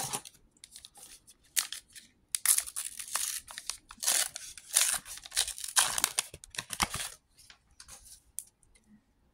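Foil booster pack wrapper for a Star Wars: Unlimited trading card game being torn open and crinkled. The loudest rips and crinkling come in the middle few seconds, with softer crackling before and after.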